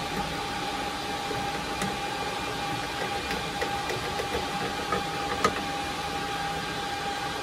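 A few light metal clicks and taps as a PCIe card's bracket is seated and screwed into a PC case, the sharpest about five and a half seconds in, over a steady hum with a constant mid-pitched tone.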